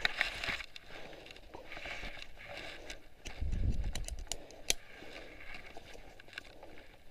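Footsteps through long grass with rustling of clothing and gear close to the microphone, broken by scattered sharp clicks. A low rumble of handling noise comes about three and a half seconds in.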